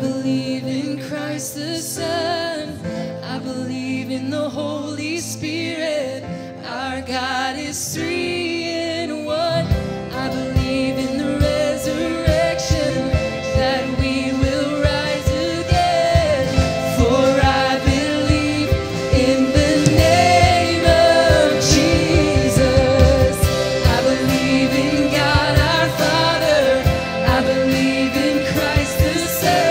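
Live worship band: a woman sings lead over acoustic guitar and keyboard, then drums and bass come in about ten seconds in and the full band plays on with her.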